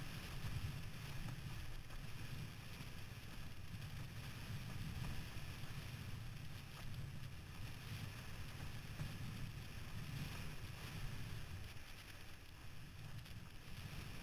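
Wind buffeting the microphone in a low, steady rumble, with water rushing under a windsurf board sailing through chop.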